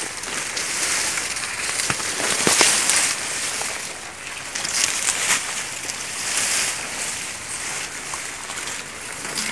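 Dry grass and stalks rustling and brushing close against the microphone in irregular swells, with a few sharp crackles.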